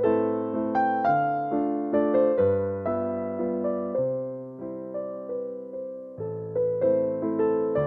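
Background music: a slow, gentle piano piece, with notes and chords struck about once a second and left to fade.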